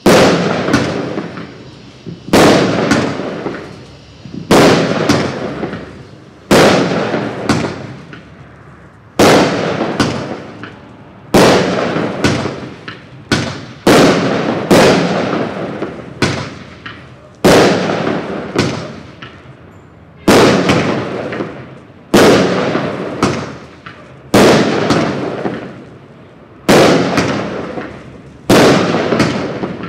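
Black Cat Two Minute Fireworks Show, a 500-gram 63-shot consumer cake, firing shot after shot: a sharp bang about every one and a half to two seconds, each trailing off over a second or so before the next.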